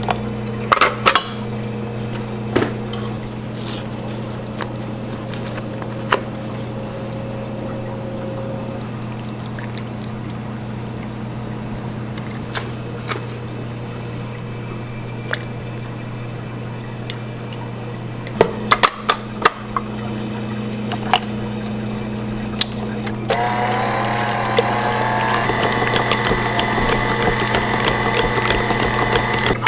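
KitchenAid Heavy Duty stand mixer with a wire whisk and steel bowl: at first the motor is off, with a few clinks of the whisk and bowl being handled and liquid poured from a carton into the creamed butter. About 23 seconds in the mixer starts and runs steadily with a whine, whipping the mixture.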